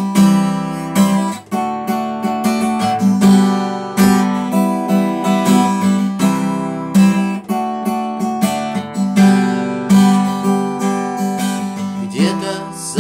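Acoustic guitar strummed in a steady rhythm, chords ringing on between the strokes, with no singing.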